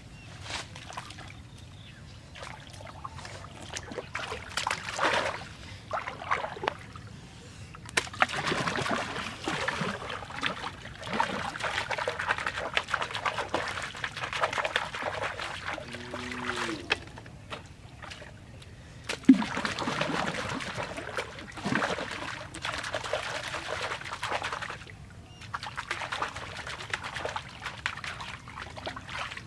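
Water splashing, sloshing and trickling in uneven bursts of several seconds each, with short lulls between them.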